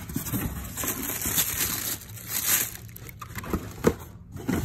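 Shoe packaging being handled: paper crinkling and rustling, with a few light knocks against the shoeboxes.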